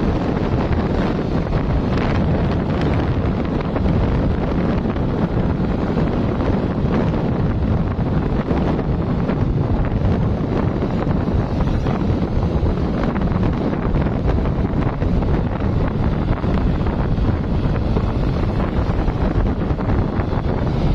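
Wind buffeting the microphone: a steady, deep rumbling rush of noise with no distinct events.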